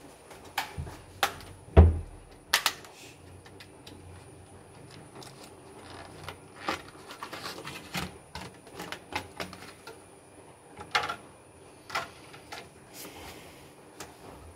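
Clicks, knocks and crackle of a clear plastic clamshell pack being handled and opened to take out a 2.5-inch SSD. The loudest is a thump about two seconds in; lighter scattered clicks follow in the middle of the stretch.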